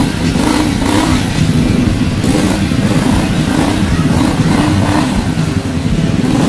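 Motorcycle engine running, its revs rising and falling repeatedly as the throttle is worked by hand.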